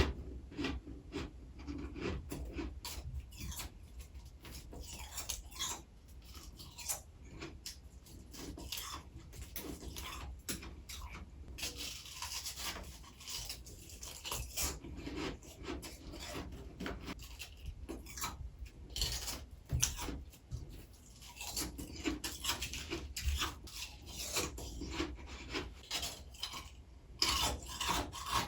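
Close-miked crunching and chewing of freezer frost: a steady run of gritty, crackly bites and grinds.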